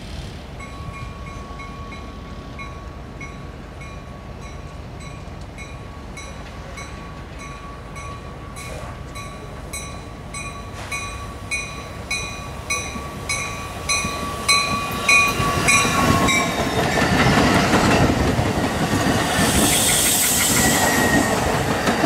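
Metra Electric Highliner electric commuter train approaching with its bell ringing about one and a half times a second over a steady high whine, both growing louder and dropping in pitch as it reaches the camera. It then rushes past with its wheels clattering, loudest near the end.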